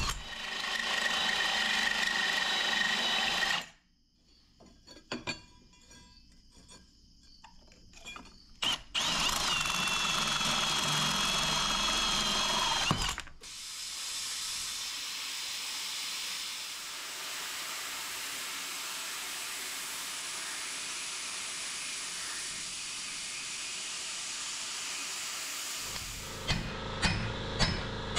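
Cordless drill boring through a flat steel bar, running twice for a few seconds each with a short pause between. Then a long, steady run of an angle grinder cutting steel plate, and a run of sharp taps near the end.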